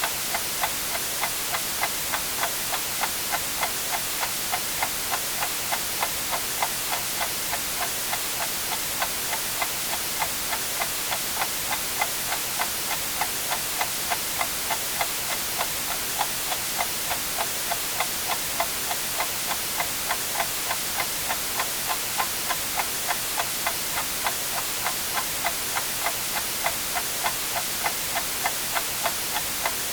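A clock ticking at a steady, even rhythm over continuous white noise, a constant hiss.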